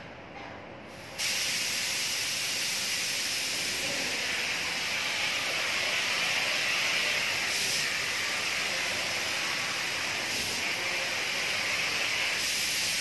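Compressed-air paint spray gun spraying: a steady, high hiss that switches on about a second in and cuts off sharply near the end.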